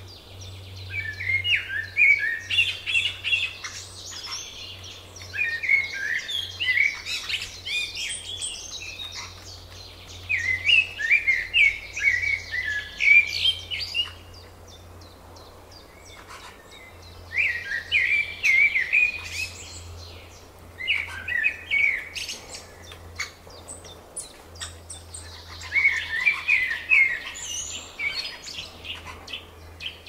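A songbird singing: a phrase of quick chirping notes every few seconds, each phrase two to three seconds long, six phrases in all.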